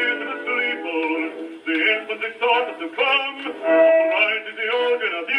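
A 1923 acoustic-era 78 rpm Columbia record of a bass singer, played on a Columbia 113a wind-up portable gramophone. The sound is thin and narrow, with no deep bass or high treble, and one note is held briefly about three-quarters of the way through.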